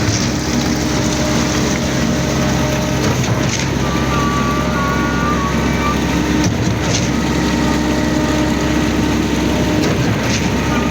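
Zoomlion truck-mounted concrete pump running steadily under load while pumping concrete up its boom, with a brief knock about every three seconds.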